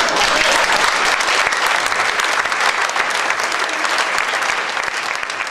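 Theatre audience applauding: dense, steady clapping that begins to die away near the end.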